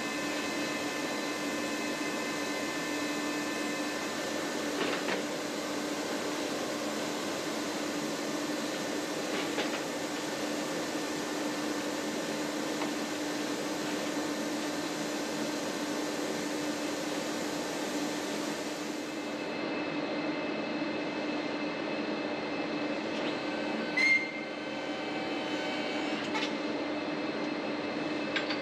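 Electric motor of the hydraulic hose-making equipment running with a steady hum. A sharp click near the end.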